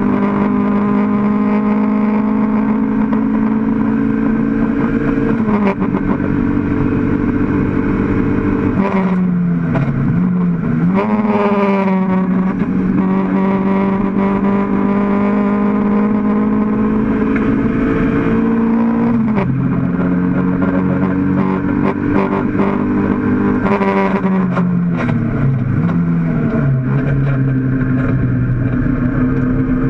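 Mk1 Toyota MR2 race car's mid-mounted four-cylinder engine under hard acceleration, heard from inside the stripped cabin: the revs climb steadily in each gear and drop sharply at the gear changes, about five, ten, nineteen and twenty-five seconds in.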